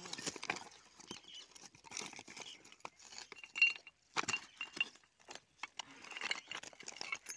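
Loose flat stones clinking and crunching irregularly underfoot, with one sharp, louder clack about three and a half seconds in.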